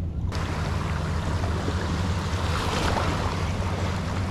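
Small waves washing and splashing over the rocks of a seawall, with wind rumbling on the microphone.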